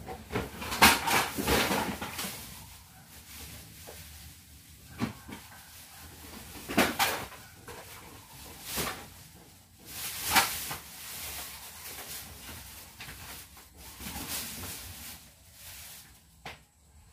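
Scattered knocks and clatters of household things being handled, moved and set down during cleaning, one every second or two, the loudest about a second in.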